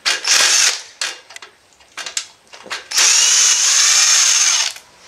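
Cordless drill-driver backing screws out of a laser printer's sheet-metal frame. A short run comes just at the start, then a few light clicks, then a longer run of about a second and a half from about three seconds in, its motor pitch rising and falling.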